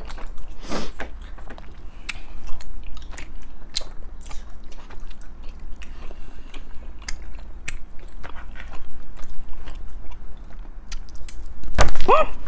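People chewing and biting tteokbokki rice cakes and noodles, with many small clicks throughout, over a steady low hum. A short, louder sound with a rising pitch comes near the end.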